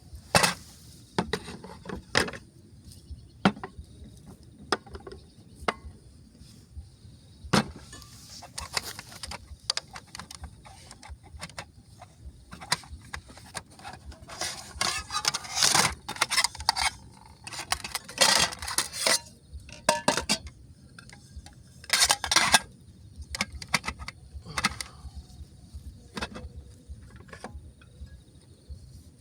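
Camp cookware and gear being handled: scattered clinks and knocks of metal and wood, with a few longer rustling stretches. A faint steady insect chirr runs underneath.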